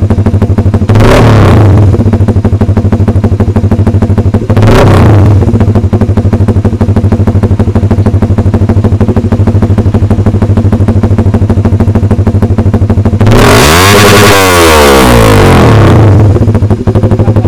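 Honda Supra GTR150's single-cylinder four-stroke engine through a Vmax big-tip racing muffler run as an open pipe with the silencer removed, very loud. It idles steadily, is blipped briefly twice near the start, then is revved for about three seconds near the end, its pitch rising and falling back to idle.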